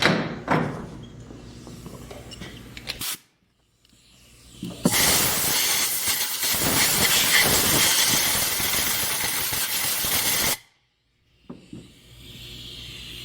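Compressed air from a blowgun blasting into the engine bay while the spark plugs are out, to clear debris: a loud, steady hiss lasting about six seconds that cuts off sharply. Before it come a few quieter clicks and clatters.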